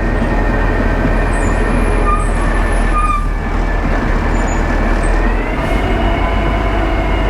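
Ready-mix concrete mixer truck running as it is driven slowly, a steady mechanical noise with a whine whose pitch rises a little about five and a half seconds in.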